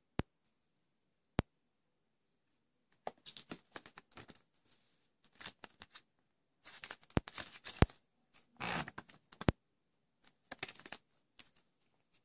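Phone packaging being handled and opened: a few sharp clicks and taps, then irregular bursts of scraping and rustling of box and wrapping, with more clicks among them.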